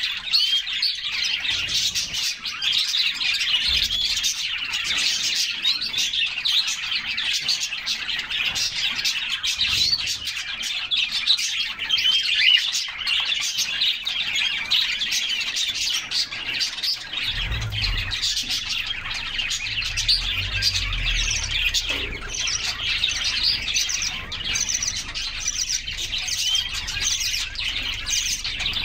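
Several canaries singing at once: a dense, unbroken tangle of quick chirps and rolling trills, with a faint low rumble joining a little past halfway.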